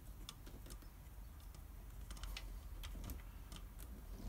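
Faint, scattered light clicks and taps from handling a clear plastic bleed tube and a ring spanner at a motorcycle's rear brake caliper bleed screw, as the tube is pushed onto the screw.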